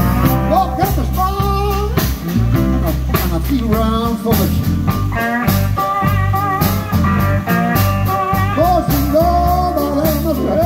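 Live blues band playing: electric guitar, drum kit, upright bass and keyboard, with a lead line of bending notes over a steady drum beat.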